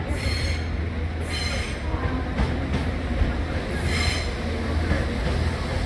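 Train at a station platform with a steady low rumble, and three short high-pitched metallic squeals from the train, about a second in, near a second and a half, and at about four seconds.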